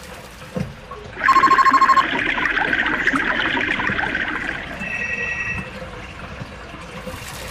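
Sound effects of a water-plant animation: a brief fast electronic trilling ring about a second in, with water rushing through pipes for a few seconds, then a short steady electronic beep.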